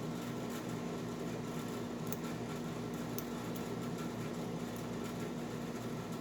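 Steady background hum with a constant low tone, over which a few faint, brief metallic ticks come about two and three seconds in: a lock pick working the pins of an old Eagle Lock Co. padlock.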